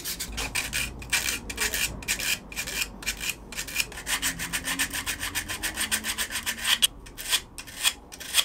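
Edges of a kydex sheath being sanded by hand, rubbed back and forth against a sanding belt in quick scratchy strokes, about three to four a second, with short pauses between strokes near the end.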